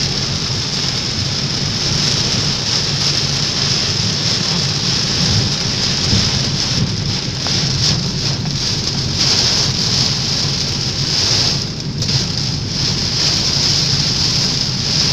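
Heavy downpour beating steadily on a moving car's roof and windshield, heard from inside the cabin, with a low rumble under the rain.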